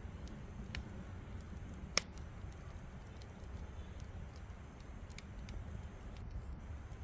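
Wood fire crackling in a fire pit, with scattered small ticks and one sharp loud pop about two seconds in.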